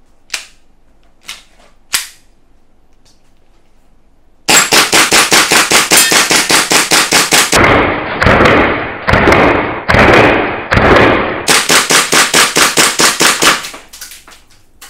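Army R601-3 Combat Master Alpha gas blowback airsoft pistol: a few sharp clicks of the mechanism, then fired in long rapid strings, several shots a second, each shot cycling the metal slide.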